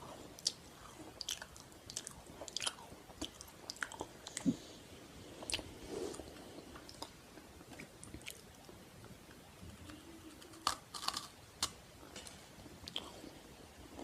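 Close-miked eating sounds: biting and chewing on something crunchy, with irregular crisp crackles and a quick run of several crunches about eleven seconds in.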